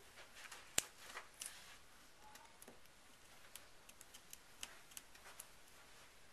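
Fingernails picking the paper backing off adhesive mounting squares on a strip of cardstock: faint scattered clicks and scratches, with one sharper click about a second in.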